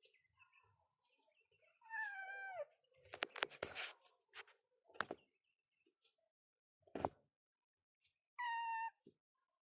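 Domestic cat meowing twice: a falling meow about two seconds in and a shorter, level one near the end. Between them come a burst of sharp knocks and rustling and two single knocks.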